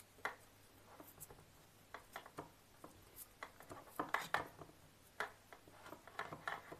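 Faint scattered rustles and small clicks of electrical tape being wrapped by hand around a twisted wire joint, busiest about four seconds in.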